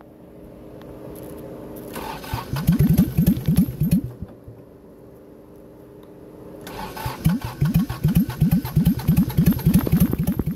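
Kubota diesel engine cranking on its electric starter in deep cold, chugging with even compression pulses about five or six a second. Two cranking bursts: a short one about two seconds in and a longer one from about seven seconds in, each stopping without the engine running on.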